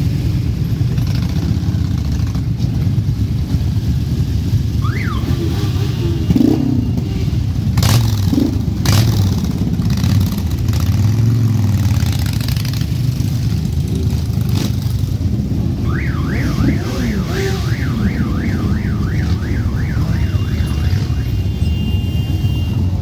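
A group of motorcycles running and pulling away one after another, a steady low engine rumble with engines revving up and down as they pass, and a few sharp cracks. For about five seconds past the middle, a fast warbling alarm-like tone sweeps up and down about three times a second over the engines.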